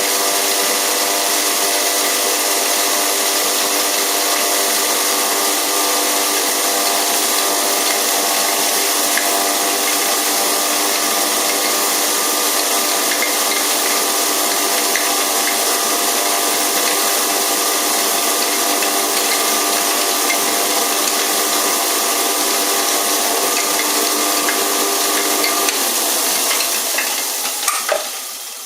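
Electric hammer mill herb grinder running: a loud, steady whirring hiss over a motor hum. Near the end the hum cuts out and the noise dies away as the machine runs down.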